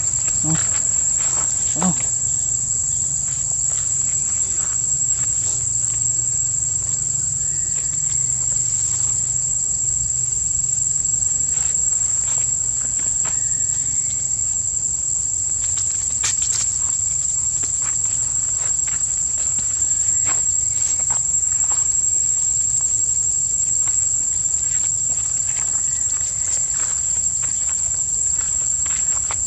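A steady, high-pitched insect drone, unbroken at one level, with faint scattered rustles of dry leaf litter.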